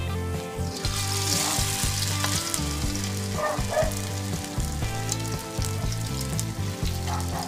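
Squash-and-batter okoy fritters sizzling as they deep-fry in hot oil. A ladleful of fresh batter goes into the oil at the start, and the sizzling grows stronger about a second in.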